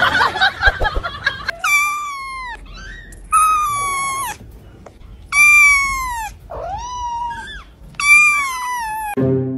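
Ginger kitten meowing close up: six high mews, four of them long and sliding down in pitch, with shorter ones between. A brief jumble of noise comes before them at the start.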